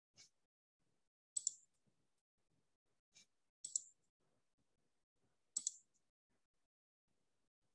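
Quiet, sharp clicks at a computer: three louder ones about two seconds apart, each a quick press-and-release pair, with two fainter single clicks between them.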